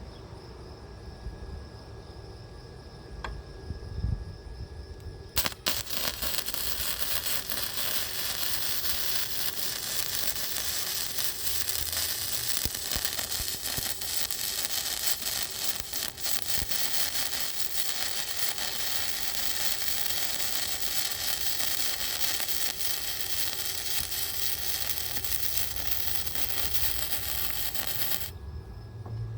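MIG welder arc running a bead on metal: a steady, dense crackling sizzle that starts about five seconds in and cuts off sharply near the end.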